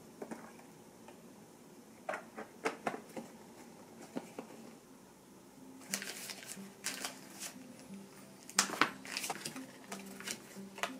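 Paper postcards being handled and spread out on a tabletop: short rustles and light taps of card on the table, few at first and busier from about halfway through, over soft background music.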